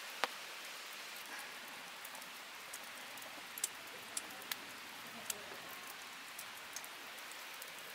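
Steady soft hiss of ambience with a scattering of faint sharp ticks, the clearest about three and a half seconds in.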